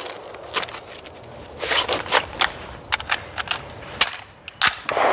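Mid-drill magazine change on a Rock River Arms CAR A2 carbine: a string of sharp clicks and clacks as a magazine is pulled from an under-arm vest pouch's quick-pull closure and seated in the rifle, with a short rasp about one and a half seconds in.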